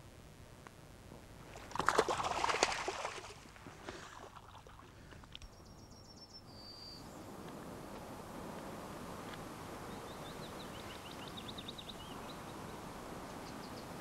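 A carp splashing in the shallows as it is let go from the hands, a short burst of splashing about two seconds in. Later, small birds singing with short repeated high notes over a steady outdoor hiss.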